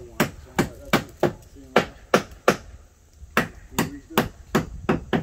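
Hammer blows on wooden boards, a steady run of sharp strikes about three a second with a short pause near the middle.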